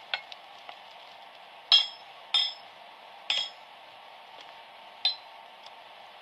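Hammer blows on the iron tire of a wooden cartwheel: four or five separate metallic clinks, irregularly spaced and each ringing briefly, over a faint steady hiss.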